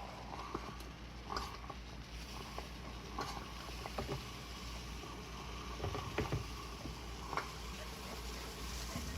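Hamilton Beach 12-cup drip coffee maker brewing: irregular gurgling pops and sputters over a steady low hum.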